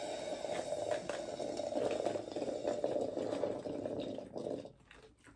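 Drink sucked up through a plastic straw: one continuous slurp that stops about four and a half seconds in.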